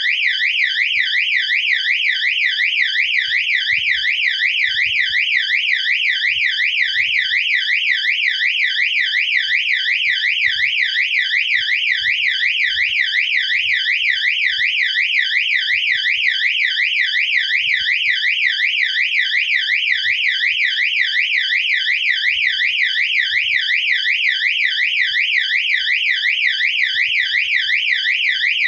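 Electronic fire alarm siren sounding continuously: a loud, high tone sweeping rapidly up and down, a few times a second, without a break.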